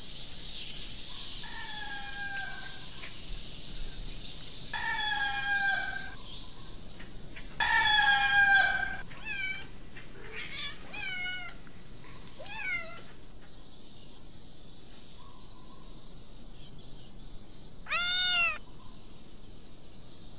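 A cat meowing on and off over a steady high hiss. There is a long, loud meow about eight seconds in, then a run of short mews, and a last meow near the end.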